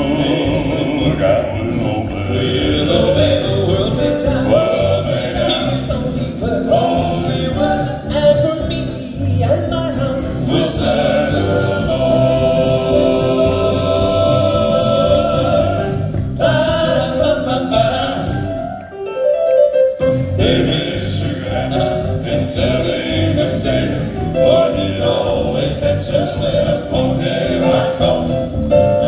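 Male Southern gospel quartet singing in close four-part harmony over a live band of keyboard, electric guitar and drums, amplified through stage speakers. About two-thirds of the way through, the music nearly drops out for about a second, leaving one thin held note, and then comes back in full.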